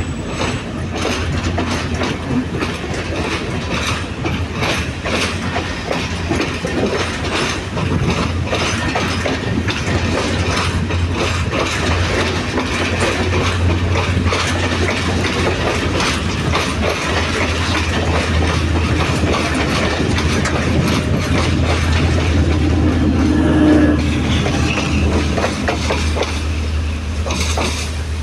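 Sri Lanka Railways diesel multiple-unit passenger train passing close by, its wheels clicking over the rail joints under a steady low engine drone. The sound swells about three-quarters of the way through, then eases off as the rear cab car pulls away.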